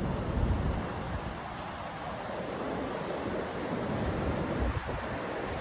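Ocean surf breaking and washing up a flat sandy beach, a steady rushing wash, with wind buffeting the microphone in low rumbles about half a second in and again near the end.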